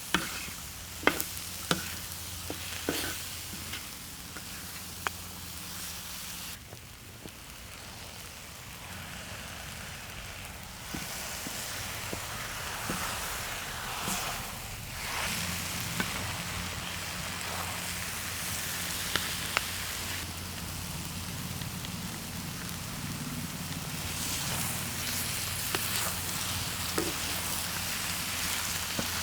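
Spicy octopus stir-fry sizzling on a cast-iron cauldron-lid griddle, with sharp clicks of a utensil against the lid in the first few seconds. The sizzle drops for a few seconds about a quarter of the way in, then comes back stronger, over a steady low hum.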